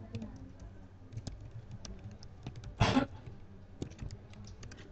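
Typing on a computer keyboard: a run of quick key clicks. A short, louder noise breaks in a little before three seconds in.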